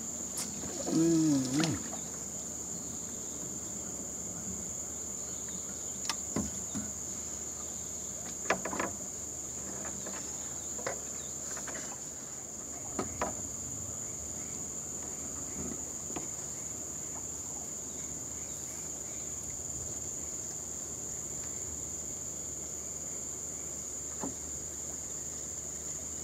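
Steady high-pitched drone of insects. About a second in there is a brief voice-like call, the loudest sound, and a few faint knocks follow later.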